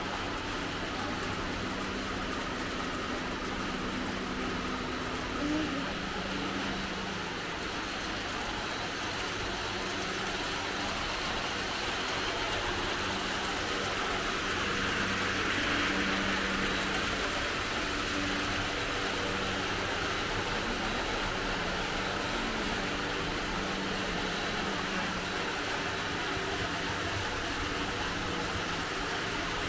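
A steady mechanical drone of a motor running in the background, under a constant hiss that swells slightly about halfway through.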